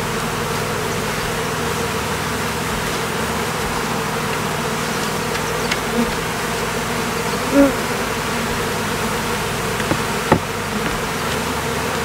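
Swarm of honeybees buzzing steadily in the air around an opened hive, with a single short knock about ten seconds in.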